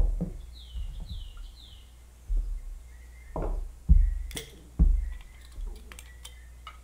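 Glass bottles clunking and being set down on a wooden bar top, about half a dozen separate knocks, as a juice bottle is picked up and its stopper opened. A bird chirps in the background with a quick run of falling chirps in the first two seconds.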